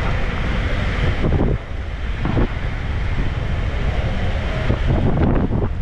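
Steady wind buffeting on the microphone of a camera riding on a road bicycle at about 23 km/h, a dense low rumble with a few brief knocks.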